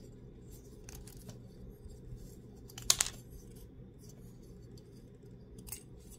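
Small clicks and scrapes of a Matchbox diecast Ford Fairlane's metal body and plastic parts being worked apart by hand, with a few faint clicks about a second in, the sharpest click about three seconds in, and another near the end.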